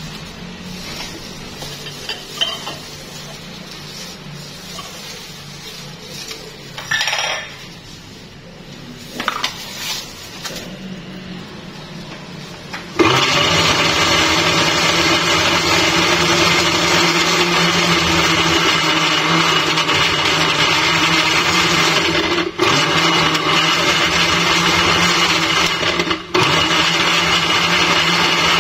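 Electric countertop blender with a glass jar switching on about halfway through and running steadily, blending a thick fruit-and-milk shake; its sound dips for a moment twice near the end. Before it starts there are only a few faint knocks and clinks.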